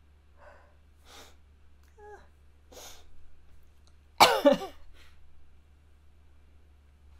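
A woman sneezing after trying to hold it back: a few quick breaths in as it builds and a brief voiced catch, then one loud sneeze about four seconds in that comes in two quick parts.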